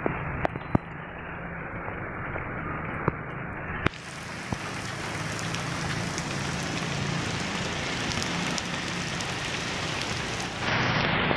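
Steady rain falling on a wet street, with a few sharp taps of drops landing close by in the first few seconds. About four seconds in, the rain suddenly sounds brighter and fuller.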